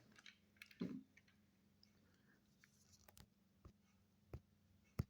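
Near silence with a few faint clicks and taps: a soft knock about a second in, then scattered sharp clicks, the sharpest near the end.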